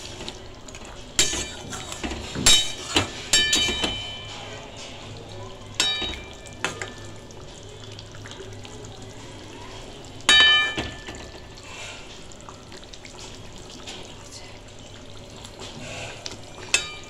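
A spatula stirring fish curry in a metal kadai, clanking against the pan so that it rings: several clanks in the first four seconds, another near six seconds and a loud one about ten seconds in. A low steady hum runs underneath.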